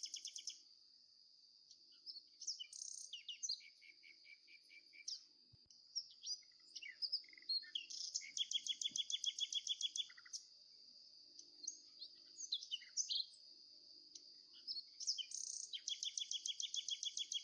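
Small songbirds chirping and singing, with fast rattling trills loudest around the middle and near the end, over a steady high-pitched ringing.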